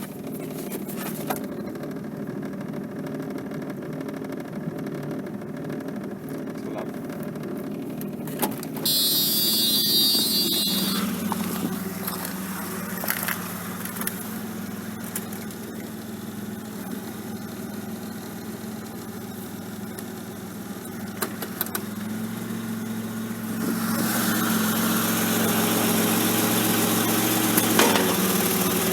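1985 Camaro's 2.8-litre V6 running with a steady low rumble, the noise the car makes when in drive. The low hum grows stronger about two-thirds of the way through, and there is a brief high-pitched sound about nine seconds in.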